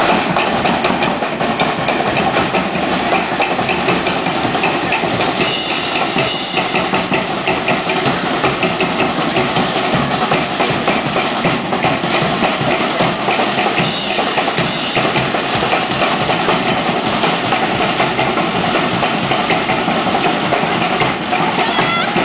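Live Polynesian drumming: a fast, steady drumbeat played on a large standing drum as accompaniment for a dance.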